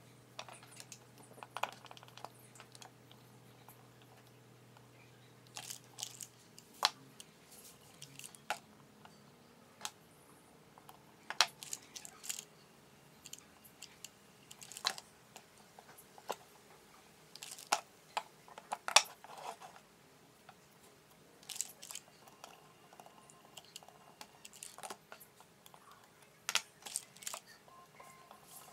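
Scattered small clicks and taps of wires, metal components and a soldering iron being handled on a wooden board while soldering a speaker crossover, with a faint steady hum that stops about six seconds in.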